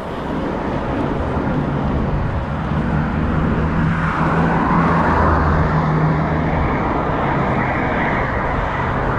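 Road traffic: a vehicle engine running with a steady low hum under road noise, the noise swelling about four seconds in as traffic passes.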